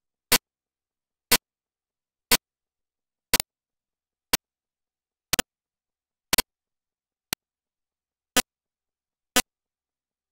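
Short, sharp clicks, evenly spaced about once a second, with dead silence between them.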